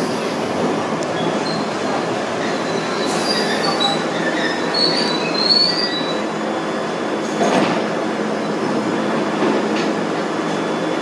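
London Underground 1973 Stock tube train running into the platform and braking to a stop on steel rails, with a steady rumble and several high squeals in the middle as it slows. A short sharp burst of noise comes about seven and a half seconds in.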